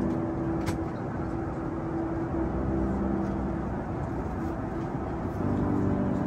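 Steady cabin noise of a Boeing 747-8 in flight, under soft background music of held chords that change every few seconds.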